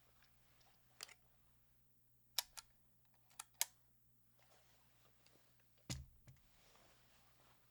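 Slow, separate keystrokes on a Sho S60v2 electro-capacitive keyboard with 45 g rubber domes, silencing rings and HHKB blank keycaps: about seven short clacks, two quick pairs in the middle. One press about six seconds in has a deeper thud.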